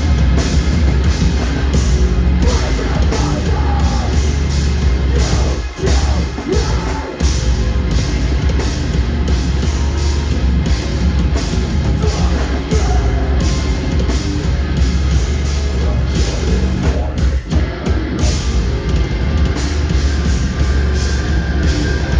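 Heavy metal band playing live and loud: pounding drums under dense distorted guitars, with a few brief stops in the playing, about six, seven and seventeen seconds in.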